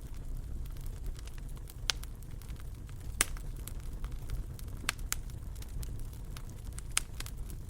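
Wood fire burning in a fireplace: a steady low rumble with irregular sharp crackles and pops, the loudest about 3 seconds in.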